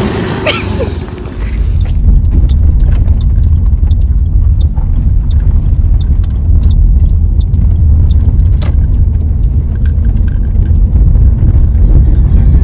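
Loud, steady low rumble of a vehicle in motion, with scattered small clicks and rattles over it.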